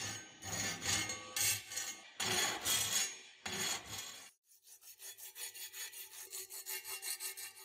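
A flat hand file rasps across a rusty steel tanto blade in several long strokes. After a short pause about four seconds in, abrasive paper rubs quickly back and forth over the steel, about five to six strokes a second and quieter than the filing.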